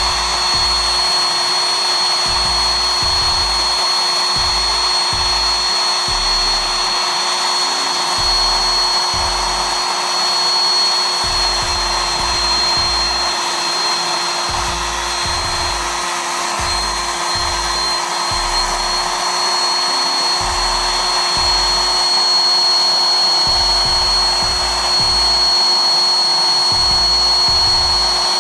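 A steady electric whir with a thin, high whine running throughout, from a small motor-driven tool or blower, under rap music with a deep, pulsing bass beat.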